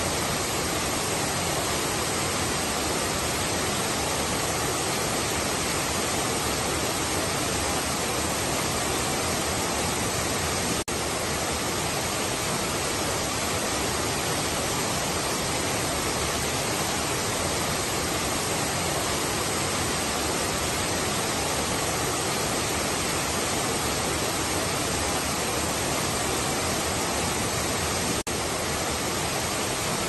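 A wide, thin curtain waterfall (Nabegataki Falls) pouring over a rock ledge into a shallow pool: a steady, even rush of falling and splashing water, broken twice by a momentary dip.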